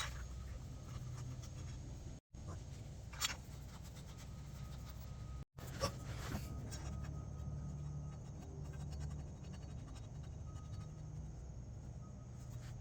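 Faint scratching and a few light knocks from hand work on exhaust parts, over a steady low hum. The sound cuts out completely for an instant twice.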